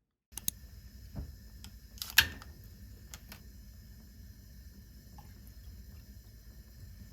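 Kitchen handling sounds: a few sharp knocks and clicks, the loudest about two seconds in, over a steady low hum.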